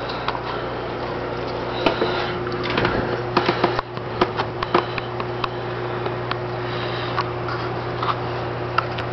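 Steady low hum and hiss of running reef-aquarium equipment, with scattered sharp clicks that cluster around three to five seconds in.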